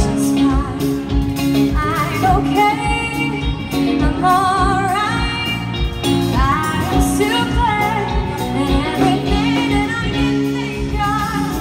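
Live band playing a pop song: a woman sings, holding notes with vibrato, over electric bass, electric guitar, keyboard and a drum kit keeping a steady beat.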